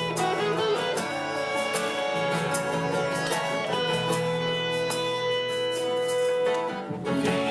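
Instrumental break in a worship song: guitar with long sustained chords over a steady beat, no singing.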